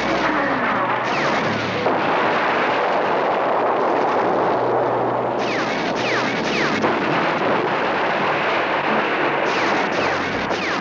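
Artillery and gunfire in a dense, continuous battle din, with a few sharper blasts and many short falling whistles.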